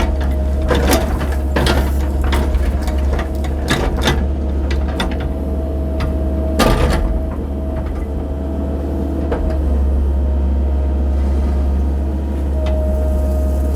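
Cat 308 mini excavator running steadily under working load, with a constant engine drone and a hydraulic whine. Sharp clunks and knocks come every few seconds as the bucket digs, the loudest about two-thirds of the way through.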